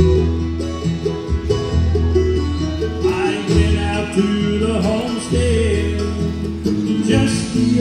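Live bluegrass band playing an instrumental break between sung verses: picked banjo and acoustic guitar over upright bass, with a brighter lead line entering about three seconds in.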